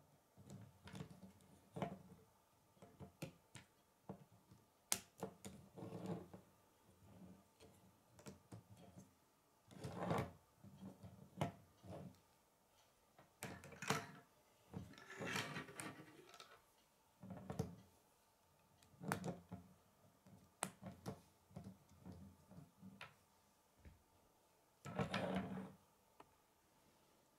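Plastic K'nex parts being handled and fitted together: scattered sharp clicks and short scraping rustles as a long flexible rod is slid through the connectors, with light knocks on a wooden tabletop.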